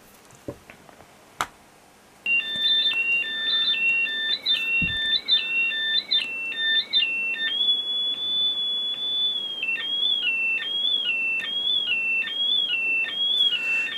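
Homemade transistor synthesizer of astable multivibrators (BC547B transistors) beeping through a small loudspeaker, heard played back from a screen. After about two quiet seconds with a couple of clicks, square-wave tones start hopping quickly among three pitches, hold one high tone for about two seconds, then settle into a repeating two-note chirp about one and a half times a second. The pattern comes from the first multivibrator driving the second one harder through the coupling potentiometer.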